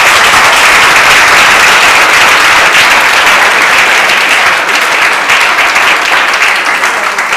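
A large audience applauding: dense, loud, steady clapping of many hands, easing off slightly near the end.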